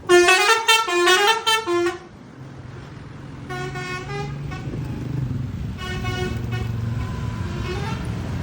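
Basuri V3 telolet musical horn on a bus playing a quick tune of stepped notes for about two seconds. Then the bus's diesel engine runs on, growing slowly louder, while the horn plays two shorter, fainter phrases.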